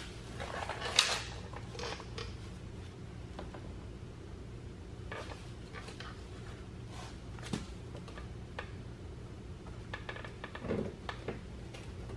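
Scattered light metallic clinks and rattles of hand tools and bolts being handled, the loudest about a second in and a short cluster near the end, over a steady low hum.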